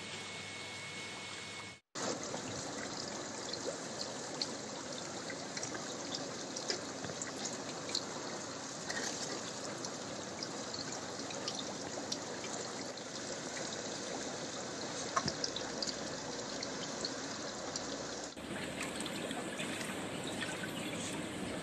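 Water trickling and splashing into goldfish tanks: a steady running-water sound dotted with small drips. It drops out briefly about two seconds in and changes character near the end.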